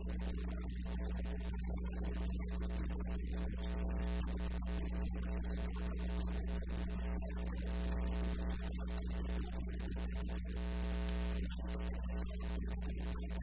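Steady electrical mains hum: a low buzz with a higher overtone running unchanged under the recording.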